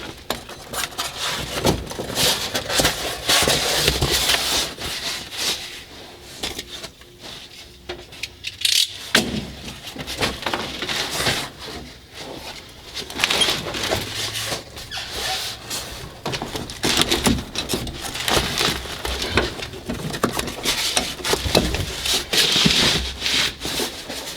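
Old floor mat being pulled and torn up from the floor of a Mack truck cab: irregular scraping, crackling and squeaking, with scattered knocks and a quieter lull partway through.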